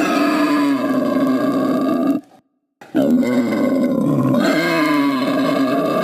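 Two long, pitched animal calls of the kind used as the voice of a prehistoric Cenozoic beast: the first lasts about two seconds, then after a short break a second runs about three and a half seconds and stops sharply near the end.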